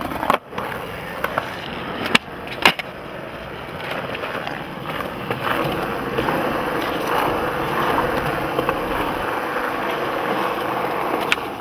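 Skateboard wheels rolling on smooth concrete. There are a few sharp clacks of the board in the first three seconds, then a long, steady roll.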